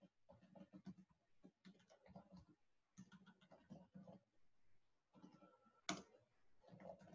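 Faint computer keyboard typing: quick, irregular runs of key clicks with short pauses, and one sharper key strike about six seconds in.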